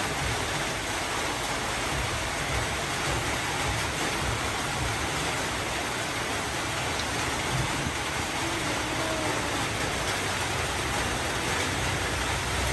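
Steady, even rushing noise at a constant level, spread from low to high pitches, like heavy rain or a running fan.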